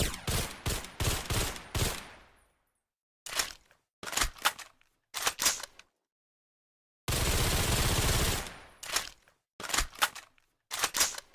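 Suppressed Mauser carbine sound effect: groups of sharp shots and clacks separated by dead silence, and past the middle one unbroken burst of noise lasting about a second and a half.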